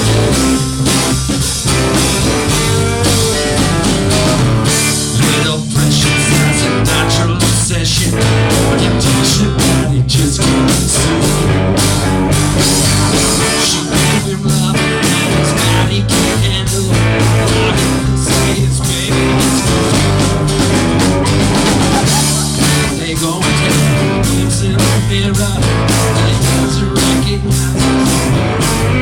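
Live band playing a loud, steady instrumental stretch of a rock song, with guitar and drums.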